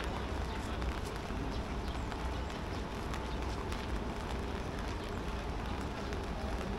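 Steady background ambience, a low even hum and hiss with faint, irregular small clicks and knocks scattered through it.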